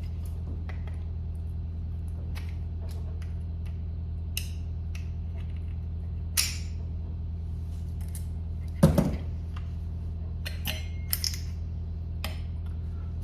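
Scattered small metal clicks and clinks of trigger-group pins and parts being worked out of an AR-9 lower receiver, with a sharper knock about nine seconds in. A steady low hum runs underneath.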